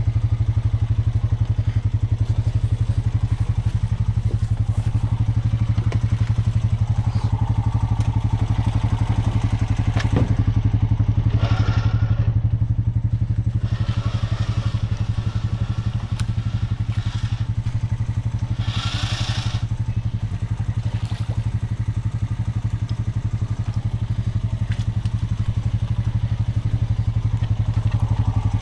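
ATV engine running steadily at an even pitch, with no revving. Two brief rushes of hiss cut in about twelve and nineteen seconds in.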